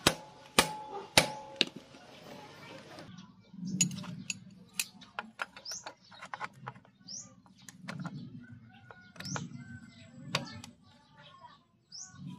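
Metal hand tools clinking against a motorcycle engine's exposed timing side. Three sharp, ringing metal strikes come in the first second and a half, then scattered light clicks as a holder tool is worked onto the crankshaft hub. Birds chirp in short rising calls several times.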